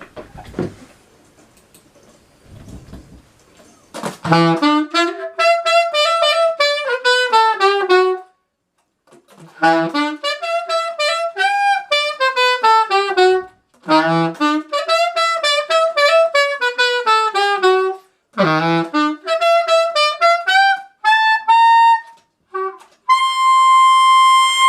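Solo alto saxophone, a 1979 Selmer Mark VI, playing four quick phrases of short detached notes with brief breaths between them, then a long high note held to the end. A few soft low thumps come before the playing starts.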